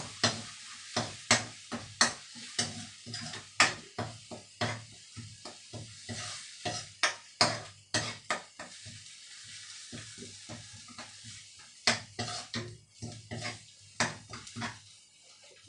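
Metal spoon stirring and scraping curry paste frying in a metal wok, with repeated sharp clinks against the pan over a steady sizzle.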